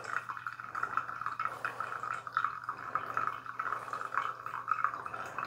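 Hot water pouring steadily in a thin stream from a kettle onto coffee grounds in a pour-over dripper.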